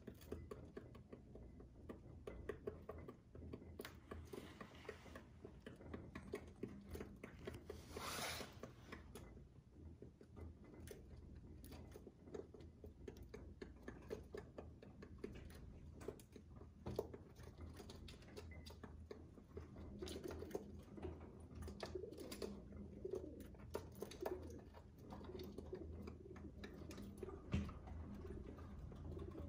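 Feral rock pigeons pecking seed from a small bowl, a quiet, rapid patter of beak taps heard through window glass. Low cooing joins in the second half, and there is a brief rushing noise about eight seconds in.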